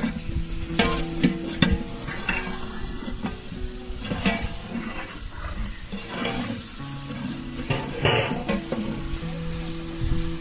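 Food frying and sizzling in a pan, stirred with a ladle in irregular scraping strokes. Background music with held notes plays underneath.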